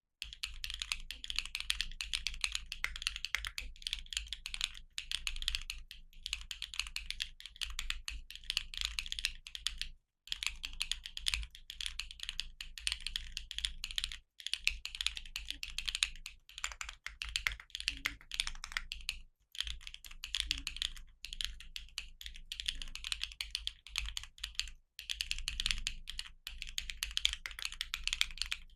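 Neo60 Core 60% custom mechanical keyboard, built without foam and fitted with Sandstorm switches, typed on fast and continuously, in runs of keystroke clacks with short pauses every few seconds.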